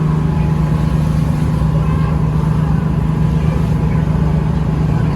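A tour boat's engine running with a steady low drone, heard on board.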